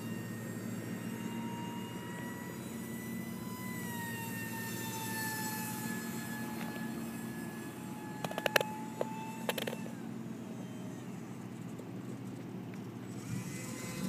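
Electric ducted fan of an E-flite UMX Habu ultra-micro RC jet whining steadily in flight, its pitch sliding down a little a few seconds in. A few sharp clicks come just past the middle.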